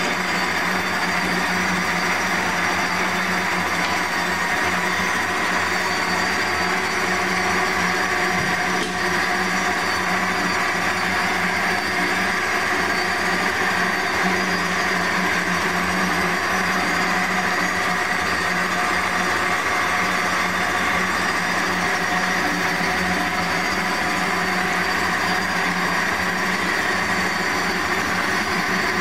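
Amada HA-400W automatic horizontal band saw running under power: a steady mechanical hum with several held tones that does not change.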